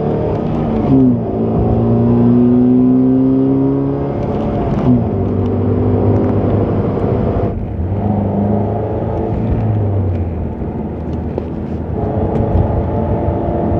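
2008 Pontiac Solstice's 2.4 L four-cylinder engine pulling hard under acceleration, breathing through a K&N Typhoon cold air intake. The engine note climbs and then drops at each gear change: about a second in, near five seconds and around seven and a half seconds.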